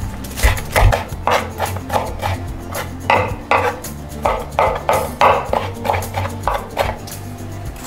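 Kitchen knife chopping fresh herbs and onion on a wooden cutting board, with uneven knocks about three times a second.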